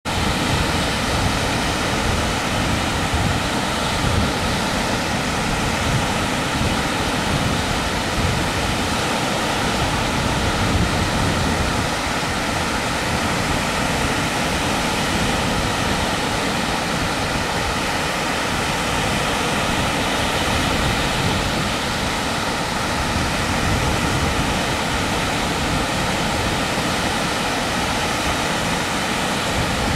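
Waves breaking on a sandy beach in a steady wash of surf, with a low rumble of wind buffeting the microphone.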